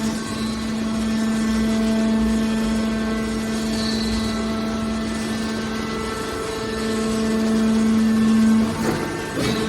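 Horizontal hydraulic metal baler running: a steady machine drone with a constant low hum, swelling a little before a brief clatter near the end.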